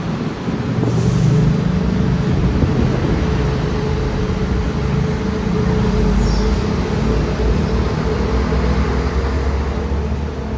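A large vehicle running close by with a steady low engine hum. There is a short hiss about a second in and a brief falling squeal around six seconds in.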